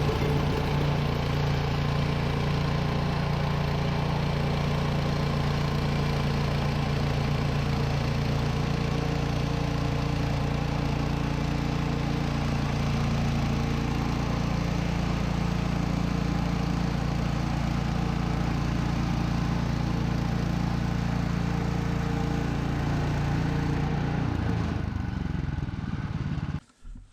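Gas engine of a Woodland Mills HM126 portable bandsaw sawmill running steadily, then slowing and cutting off near the end.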